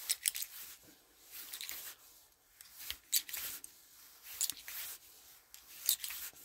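Cleaning rod with a cloth patch scraped through the chambers of an EAA Bounty Hunter .45 Colt revolver cylinder, held in nitrile-gloved hands: a handful of short, high-pitched rubbing strokes about a second or so apart.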